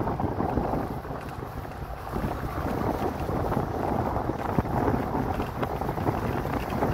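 Wind buffeting the camera's microphone: a rough, low rumbling noise that rises and falls in strength.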